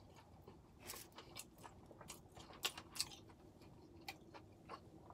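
Faint close-up eating sounds: chewing a mouthful of pad thai noodles, with irregular soft mouth smacks and small clicks.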